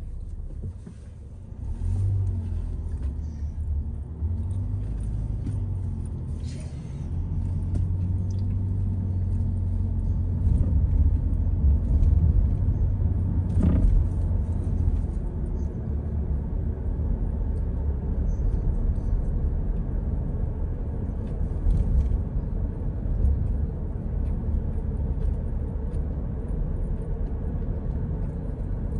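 A car driving, heard from inside the cabin: a steady low rumble of engine and road noise that gets louder about two seconds in and again a few seconds later, with one short click about halfway through.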